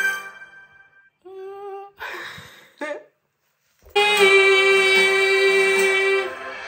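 A woman singing a musical-theatre song over a backing track: a short sung phrase and a breath, a brief silent gap, then a long held note about four seconds in that eases off near the end. The singer says she is short of air.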